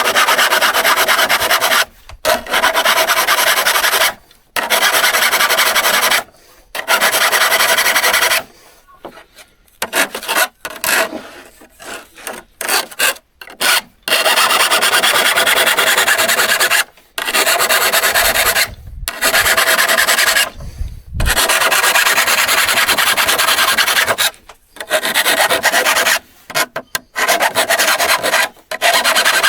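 Steel saw blade being scraped by hand with a file or abrasive, in long rasping passes of two to four seconds broken by short pauses, with a stretch of shorter, choppier strokes partway through.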